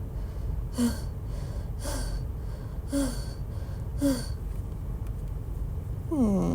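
A voice actor gasping for breath, four short voiced pants about a second apart, acting out someone winded and hurting from exhaustion, then a groan that falls in pitch near the end.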